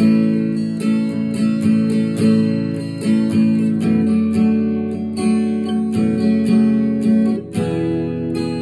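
Acoustic guitar strummed in a steady rhythm of chords: an instrumental introduction before the singing of a folk song begins.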